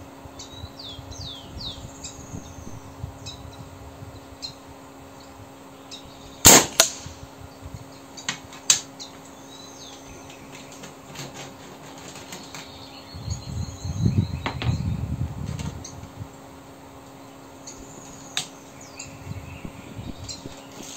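A single shot from a PCP air rifle (a customised URKO III with a Lothar Walther barrel, firing lead slugs) about six and a half seconds in: one sharp crack, followed by a few smaller clicks. Birds chirp throughout, and there is a spell of low rumbling past the middle.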